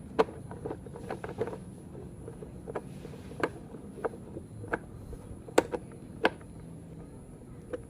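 A series of short, sharp clicks at uneven intervals, in places coming about every two-thirds of a second, over a faint steady hum and a thin high whine.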